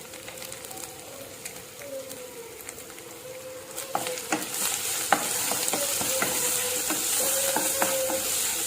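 Onion, ginger-garlic and turmeric masala sizzling in hot oil in a pan while being stirred, with a spatula clicking and scraping against the pan. The sizzle grows louder about four seconds in.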